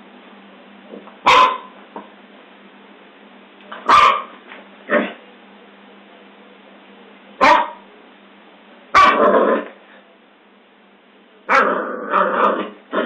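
Scottish Terrier barking: sharp single barks every few seconds, then a quicker run of barks near the end.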